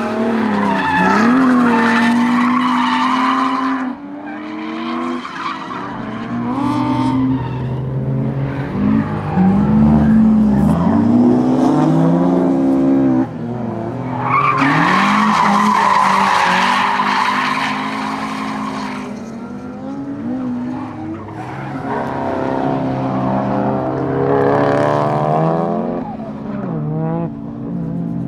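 Drift cars sliding past on a track, engines revving up and down through the slides, with repeated bursts of tyre squeal. The longest, loudest squeal comes about halfway through.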